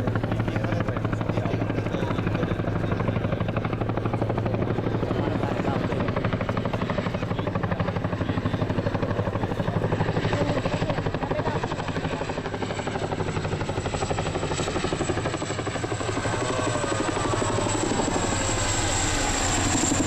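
Boeing CH-47SD Chinook tandem-rotor helicopter running, its rotor blades beating rapidly and steadily. A high turbine whine grows stronger near the end.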